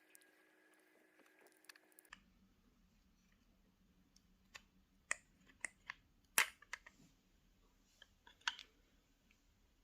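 Scattered sharp clicks and taps of a hair trimmer's small parts being handled, about ten in a few seconds, the loudest near the middle. A faint steady hum in the first two seconds cuts off abruptly.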